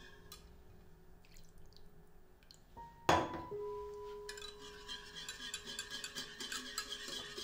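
Wire whisk beating a creamy sauce in a metal saucepan, its wires clicking quickly against the pan, with the clicking getting busier after a loud knock about three seconds in. Soft background music with held notes plays underneath.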